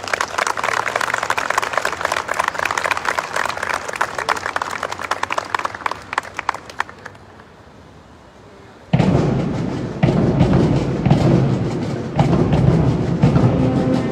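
Audience applause that dies away after about seven seconds; then, about nine seconds in, a military concert band starts up suddenly and loudly with brass and drums.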